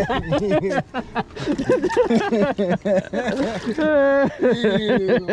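Indistinct talking and laughter from people nearby, with one drawn-out voiced sound about four seconds in.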